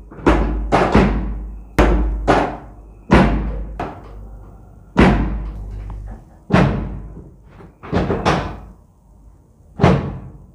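About a dozen heavy, booming drum-like hits at irregular spacing, each with a sharp start and a ringing fade.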